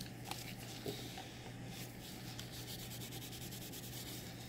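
Faint, rapid rubbing of a paper towel over a latex practice skin, wiping excess pigment off a tattooed brow to reveal the result.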